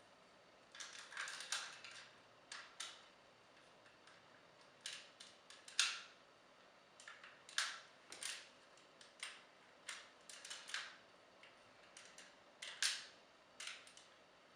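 Hard plastic parts of a Transformers action figure clicking and tapping in scattered, irregular clicks as the toy is handled and its guns are pushed onto the wings.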